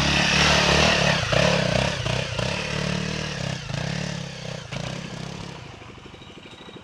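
Off-road motorcycle engine running, loud at first and fading away over several seconds, with a few clunks and knocks from the bike.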